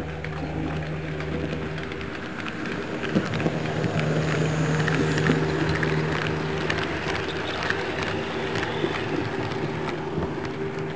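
Model railway train running past on its track: a steady electric-motor hum with a busy clicking rattle of wheels on the rails, loudest about four to six seconds in as it passes close by.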